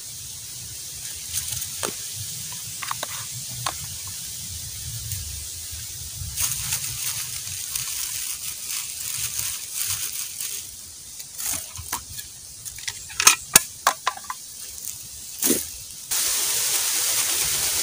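Dry bamboo leaves rustling and crackling as hands sort and crumple them on the ground, with a run of sharp crackles past the middle. Near the end a steady hiss starts abruptly.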